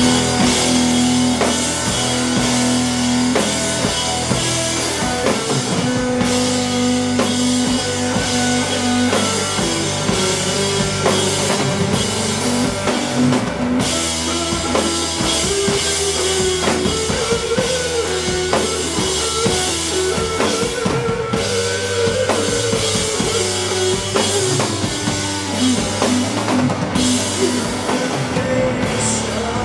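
Live rock band playing an instrumental passage without vocals: drum kit with steady beats and guitar over sustained low notes.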